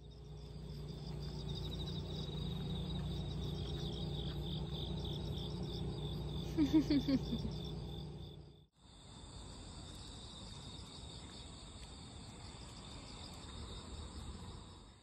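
Steady, shrill chorus of summer insects. It breaks off briefly about nine seconds in, then returns with a higher-pitched drone added. A short, louder sound with a quick pitch glide comes about seven seconds in.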